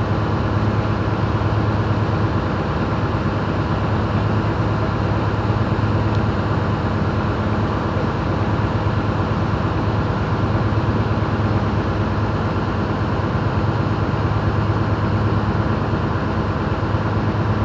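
A ship's engine running steadily: a low, even drone with a constant hum.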